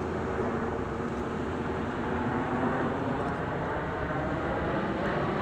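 Jet engines of a six-ship formation of Aero L-39 Albatros trainers flying past: a steady jet rumble with a low drone.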